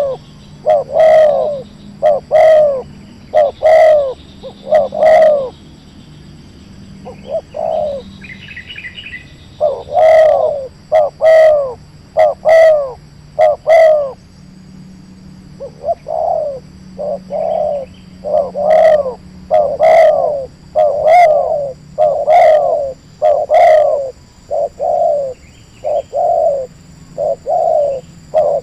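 A dove calling in a long series of short, loud coos, about one a second, in runs of several with short gaps between runs. A small bird chirps faintly once, about nine seconds in.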